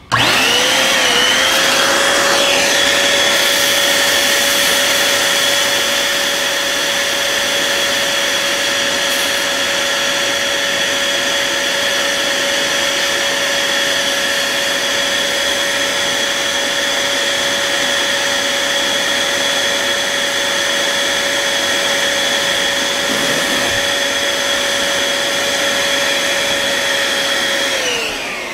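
Premium Foil Pro electric balloon inflator, a cool-air blower with a foil adapter, running as it fills a foil balloon. It switches on and spins up within about a second, holds a steady motor whine, and winds down with falling pitch near the end once the balloon is full.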